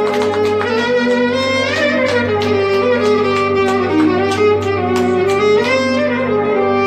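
Clarinet playing a free, unmetered taksim improvisation in makam hicaz: a flowing melody with notes that glide and bend between pitches, over a steady low hum.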